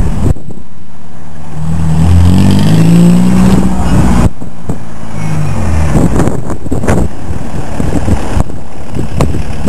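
Volkswagen Golf diesel engine running with no muffler, its straight-piped exhaust very loud as the car drives past, the pitch rising and falling as it revs under load about two to four seconds in.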